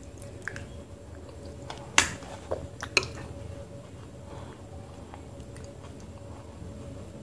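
Close mouth sounds of someone chewing a spoonful of thick multani mitti (Fuller's earth clay) paste, with a few sharp clicks, the loudest two about two and three seconds in, over a faint steady hum.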